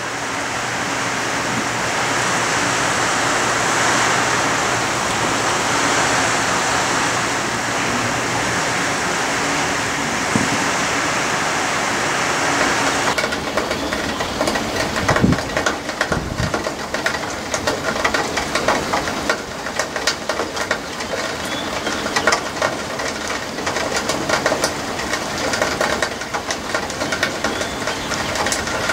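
Heavy rain pouring down in a steady hiss. It changes abruptly to light rain and dripping water, a patter of many small irregular taps and drips as the downpour eases.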